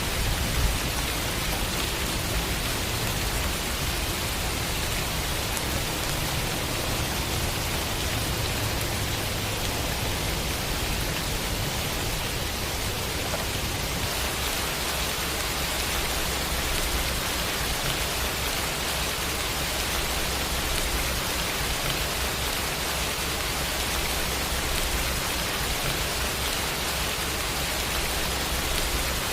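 Steady, even rain sound effect: a dense wash of rainfall hiss.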